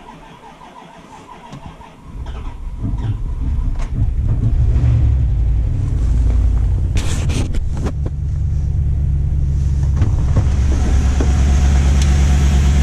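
1996 Dodge Ram 1500's 5.2-litre Magnum V8 starting about two seconds in, then idling steadily. A few sharp clicks come about seven seconds in.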